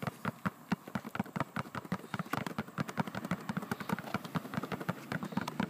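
Two basketballs dribbled at once on concrete, one bounced in place while the other is moved around: a quick, even run of bounces, several a second.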